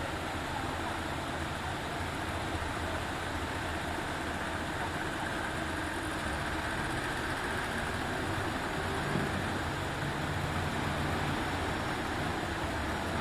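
A heavy engine running steadily, with a steady low hum and a broad rumbling noise over it. A deeper tone joins about eight and a half seconds in.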